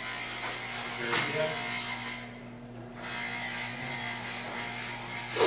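Steady mechanical hum with a constant low drone, a brief click about a second in, and a sharp, louder knock near the end.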